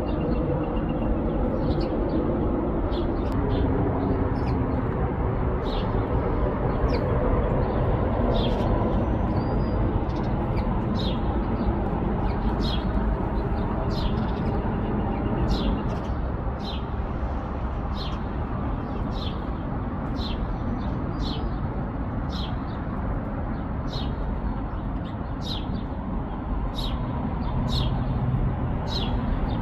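Small birds chirping, with short sharp chirps about once a second, over a steady low rumble that eases a little after the middle.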